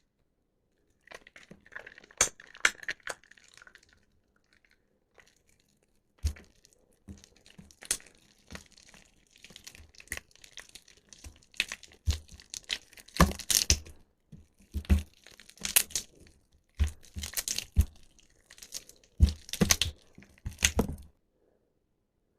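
Soft, water-soaked bar soap being squeezed and crushed, a run of wet crackling and crunching squishes in irregular bursts that stop shortly before the end.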